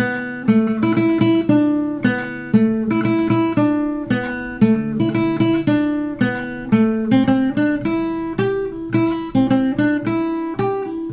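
Nylon-string classical guitar playing a requinto lead melody in Ecuadorian bomba rhythm in A minor: quick runs of single plucked notes that ring on, a short phrase repeated several times.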